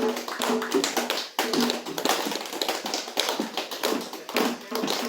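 Fast, dense tapping percussion in a steady rhythm, with a low melodic line stepping between a few held notes beneath it. It breaks off briefly about a second and a half in.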